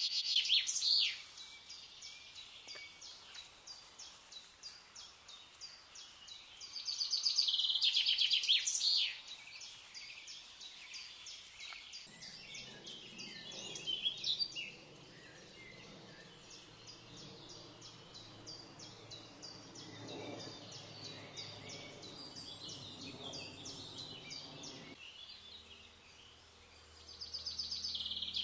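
Wild birds singing and chirping outdoors, with many short calls repeated a few times a second and louder bursts of song near the start, in the middle and near the end. A low, even background noise comes in about twelve seconds in and stops about thirteen seconds later.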